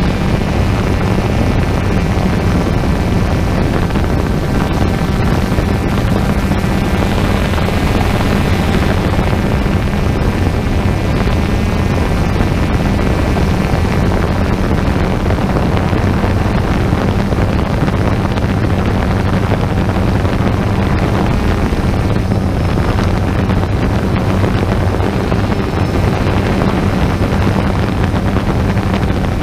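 Quadcopter drone's motors and propellers buzzing steadily in flight, heard through the camera on the drone itself: a low hum with a higher whine above it.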